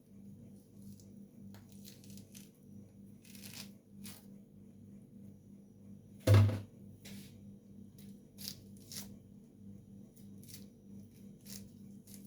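Citrus peel and pith being cut and pulled away from the fruit by hand with a knife: short tearing, scraping strokes every half second or so, with one louder knock about six seconds in.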